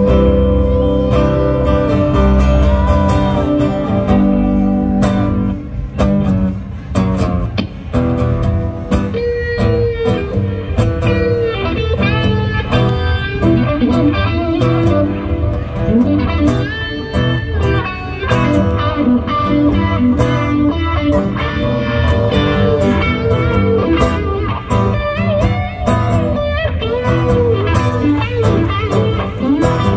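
Live instrumental guitar jam by two guitarists, a lead guitar bending notes over steady accompaniment, with no singing.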